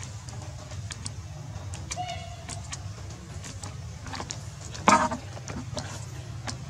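A steady low rumble under scattered light clicks and rustles, with a brief high tone about two seconds in and one sharp knock about five seconds in.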